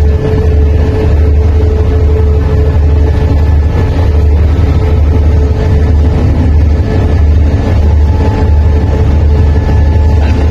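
CSR Qishuyan diesel-electric locomotive running steadily as it creeps up to a passenger coach to couple on: a loud, deep engine rumble with a steady hum above it.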